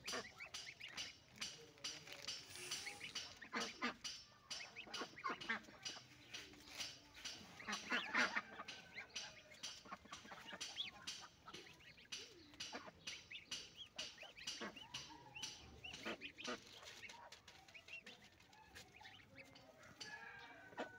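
Goslings peeping softly while pecking and tearing at fresh greens, a steady patter of short bill clicks and leaf rustles, busiest about eight seconds in.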